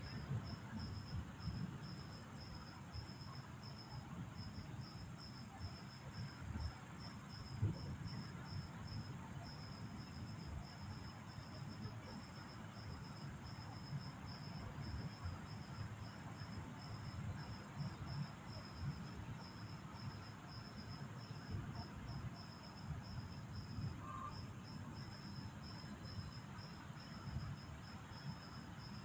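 Night insects chirping in a steady high-pitched pulse, over a low, uneven rumbling background noise.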